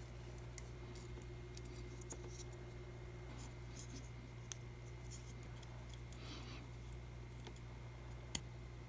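Faint small clicks, taps and scrapes of tiny plastic and metal scale-model motorcycle parts being handled and fitted together by hand, over a steady low electrical hum. One sharper click comes near the end.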